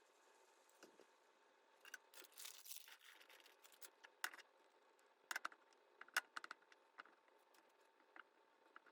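Faint kitchen handling sounds: a brief rustle about two seconds in, then a scatter of light clicks and taps of utensils.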